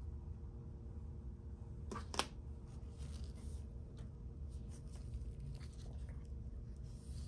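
Small clicks and faint scraping of tools and parts being handled during an iPod Classic teardown, with a sharp double click about two seconds in, over a steady low hum.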